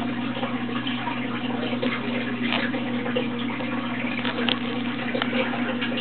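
Steady rushing background noise with a low electrical hum, and a couple of faint ticks.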